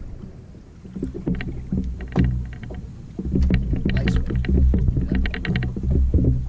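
Water slapping and lapping against the hull of a bass boat sitting on open water, a steady low rumble that swells unevenly, with a few short runs of quick clicks.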